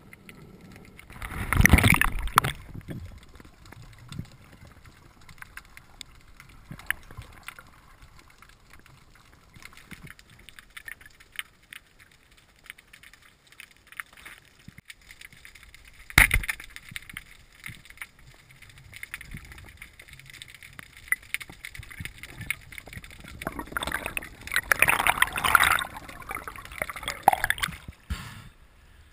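Underwater sound from a diver's camera: faint water noise with scattered small knocks, a loud rush of water and bubbles about two seconds in, and one sharp knock about halfway. Near the end comes a longer stretch of bubbling and splashing as the diver rises to the surface.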